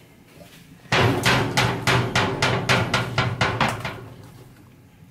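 A rapid run of about a dozen sharp knocks, about four a second, starting about a second in and stopping just before four seconds, with a short ringing tail.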